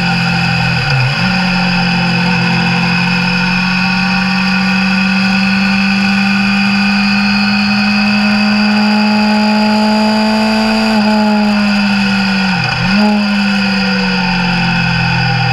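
Suzuki Bandit 600's inline-four engine running steadily under way, an A2-restricted 34 hp bike, heard from an onboard camera. The engine note dips briefly in pitch and recovers twice, about a second in and again near the end.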